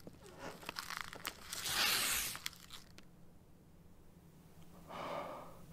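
Paper envelope being torn open and the letter inside handled, crackling and rustling, with the loudest tear about two seconds in and a softer rustle near the end.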